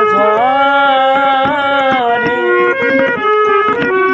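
Hand-pumped harmonium playing a wordless folk-song melody, with percussive strokes under it.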